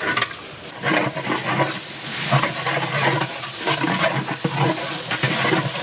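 Fresh mint and coriander leaves sizzling as they hit hot oil and fried onions in a large metal cooking pot, with irregular scrapes and knocks of a long metal stirring paddle against the pot.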